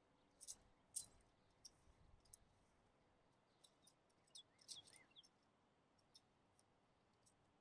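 Faint, irregular clicks of segmented tent pole sections being snapped together and handled, with small clusters of clicks about half a second to a second in and again around four to five seconds in.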